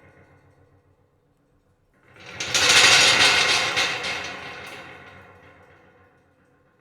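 Pieces of scrap metal rattling and clattering. The sound swells quickly about two seconds in, is loudest a second later, then dies away over about three seconds.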